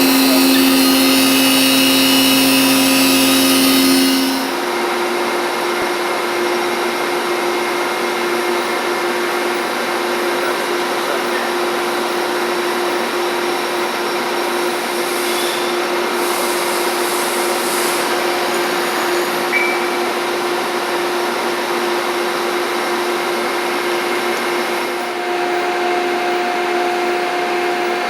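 1998 Mazak VTC 20B CNC vertical mill running, a steady machine hum and whine with several held tones. About four seconds in the loudest, hissier part drops away and the lowest tone stops; near the end a new, higher tone starts.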